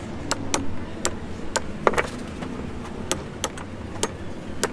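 Hammer tapping on metal: about nine sharp strikes at uneven spacing, a couple of them ringing briefly.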